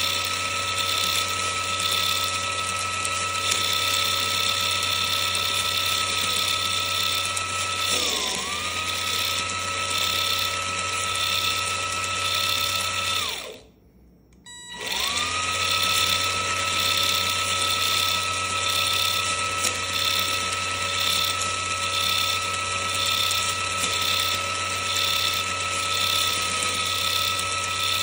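Electric motor driving the Capo Samurai Sixer's two-stage RC gearbox, a steady high whine of motor and meshing gears. The whine dips briefly about eight seconds in. Near the middle it stops for about a second and a half, then spins back up to speed.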